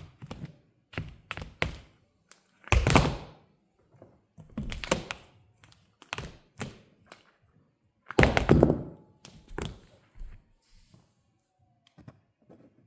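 High-heeled mules stepping on a hard floor and crushing a banana: scattered sharp heel taps, with two longer, heavier thuds about three and eight seconds in.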